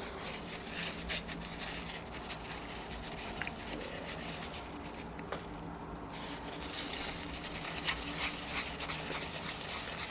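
Paper towel rubbing and scrubbing on the top of a model four-stroke engine's piston, wiping it clean, in many short, irregular strokes.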